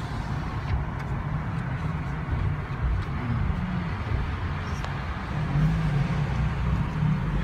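Low, steady rumble of a vehicle's engine and road noise, heard from inside the cabin while driving.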